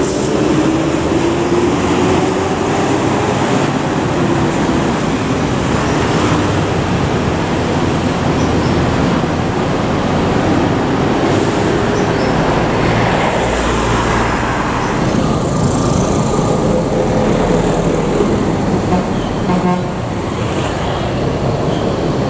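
Road traffic: a Mercedes-Benz coach pulls away with its engine note wavering up and down, over a steady roar of passing cars, trucks and motorcycles.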